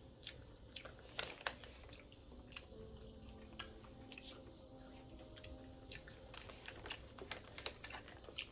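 Faint chewing and small mouth clicks of people eating peach gummy rings, over a low steady hum.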